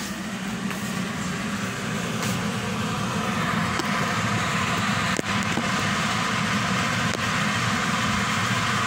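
Kitchen fan running with a steady whooshing hum, growing louder over the first few seconds. A light knock comes about five seconds in.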